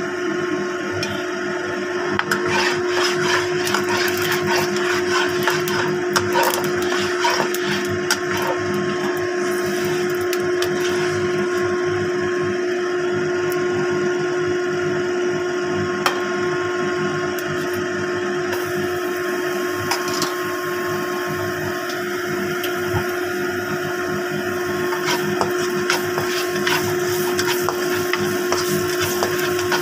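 A steady mechanical hum at one fixed pitch, with light crackling of oil heating in a wok over it for several seconds near the start and a few scattered clicks later.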